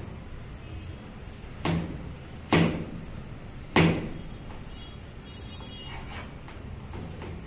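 Chef's knife chopping a carrot on a plastic cutting board: three sharp knocks of the blade on the board, then a few lighter taps near the end.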